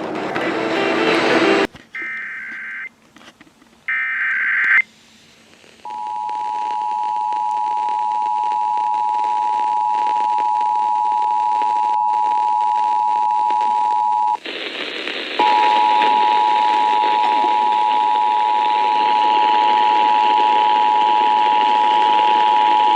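Two short bursts of EAS SAME digital data tones, about two seconds apart, then the two-tone EAS attention signal held steady for about eight seconds. It breaks off for about a second, then sounds again over radio hiss for about nine more seconds, announcing a Required Monthly Test alert.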